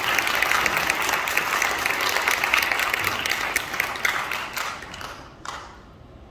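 Audience applauding, dense clapping that thins out and dies away about five seconds in.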